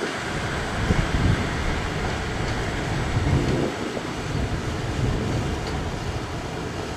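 Class 156 diesel multiple unit pulling away over pointwork: a low rumble of its underfloor diesel engines and wheels, with irregular low clunks as the wheels cross the points.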